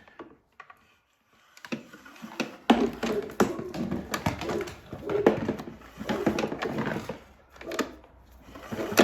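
Recoil starter rope of a PowerSmart 170cc overhead-valve lawnmower engine pulled over and over, starting about a second and a half in, the engine turning over with its valve cover off. The valves stay still as it turns, which the owner takes for something major disconnected inside the engine.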